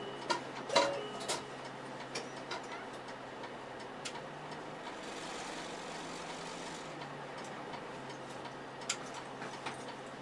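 Inside a route bus's cabin: the engine runs with a steady low hum that rises slightly in pitch for a few seconds in the middle. Scattered ticks and clicks come over it, with a few sharper clicks near the start and again near the end.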